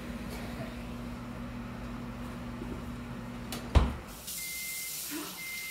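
A refrigerator door being shut with a single thump about four seconds in, over a steady low hum.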